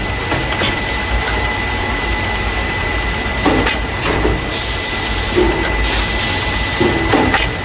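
Carton caser, a packing machine that loads paper cartons of juice or milk into plastic crates, running with a steady hum and a constant high tone. Irregular knocks and clacks from its moving parts come through, with two short hisses a little past the middle.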